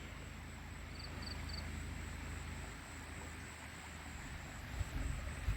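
Quiet outdoor ambience: a steady soft hiss with low wind rumble on the microphone, three quick high chirps about a second in, and a few soft knocks near the end.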